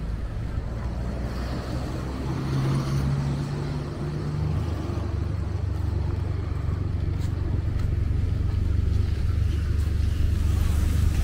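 Road traffic: the low rumble of engines of vehicles close by, one engine note changing pitch a few seconds in, growing slowly louder toward the end.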